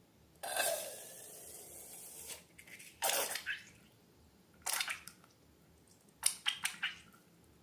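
Slime-making handling sounds: a hiss lasting about two seconds, then two short wet bursts, and a quick run of sharp clicks near the end.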